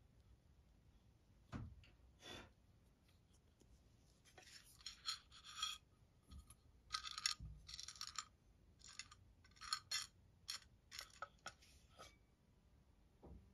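Dry cloves rattling and clinking in a small stainless-steel bowl in a string of short, uneven bursts, after a couple of soft knocks on the wooden board.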